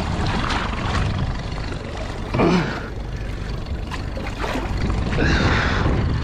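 Steady low rumble of a small fishing boat at sea. About two and a half seconds in comes a short, loud sound that falls in pitch, and near the end a brief rush of hiss.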